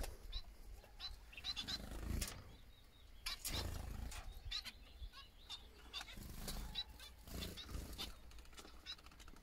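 Small finches in an aviary chirping, with short high calls scattered irregularly throughout. A low rumble comes and goes underneath.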